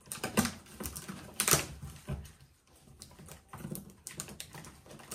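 A cardboard box being cut open with a box cutter: irregular scrapes, crackles and clicks of the blade and cardboard, loudest about one and a half seconds in.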